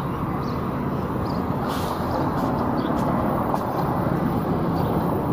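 Steady noise of road traffic, an even wash with no single vehicle standing out.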